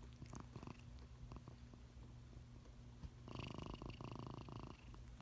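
A house cat purring close up, a faint steady rumble that swells louder for about a second and a half past the middle.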